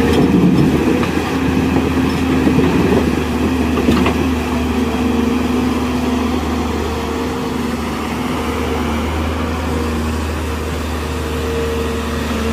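Tata Hitachi hydraulic excavator's diesel engine running steadily under working load, with a constant hum and whine.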